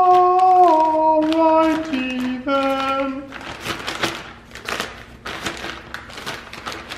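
A short run of loud held sung or musical notes, stepping down in pitch, ends about three seconds in. Then the plastic bag wrapped around a new camshaft crinkles as it is pulled off the cam.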